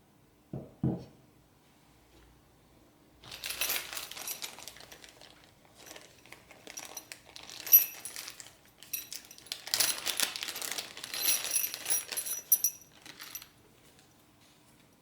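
Two short low knocks, then about ten seconds of small metal pieces clinking and jingling against each other in irregular bursts, with a bright ringing in the clinks.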